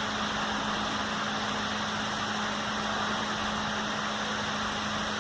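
Steady machine noise: an even hiss with a constant low hum that does not change.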